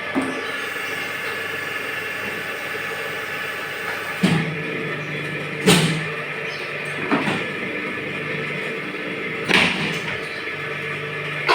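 Small two-mould machine making plastic gallon-jug caps, running with a steady hum. About five sharp clunks come at uneven intervals, one to four seconds apart.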